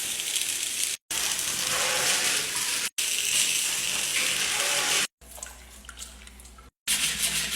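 A steady hissing noise in several short clips cut apart by abrupt silences, with a quieter stretch holding a low hum a little after the middle.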